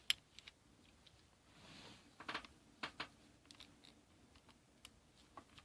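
Faint, scattered plastic clicks and a brief rustle as a camcorder battery is handled one-handed, with a small cluster of clicks a couple of seconds in.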